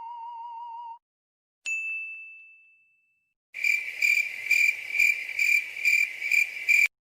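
A string of comedy sound effects: the end of a warbling whistle-like tone, then a single bright ding that rings out for about a second, then a high cricket-chirp effect pulsing about twice a second for some three seconds, cut off abruptly.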